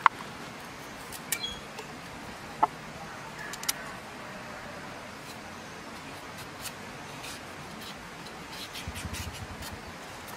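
Short bird chirps over a steady hiss, then near the end a quick run of scraping strokes: a knife scraping the skin off a carrot.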